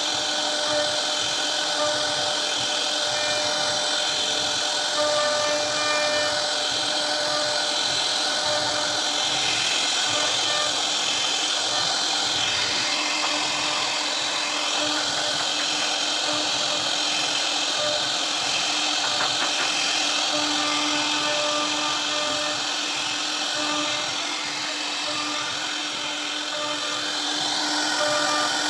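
CNC router spindle running steadily with a constant whine while its bit carves a relief pattern into a wooden door panel, with the hiss of the cut in the wood.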